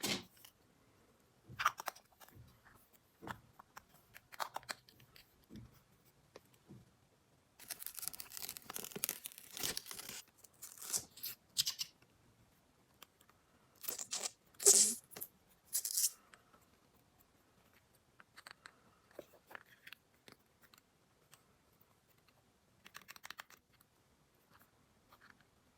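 Hands unpacking miniature plastic toy kitchen items: plastic packaging crinkling and tearing in several short spells, with scattered light clicks of small plastic parts being handled.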